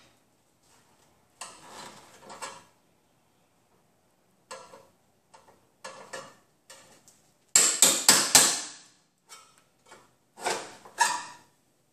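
Hammer blows on a chisel against sheet steel, chiseling a spot-welded radiator support flange loose from the inner fender apron. The strikes come irregularly, the loudest a quick run of four about eight seconds in, then two more near the end.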